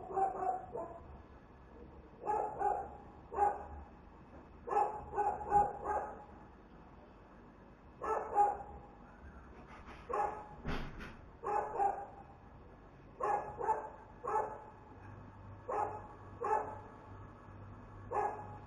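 A dog barking repeatedly, in short runs of one to four barks with pauses between.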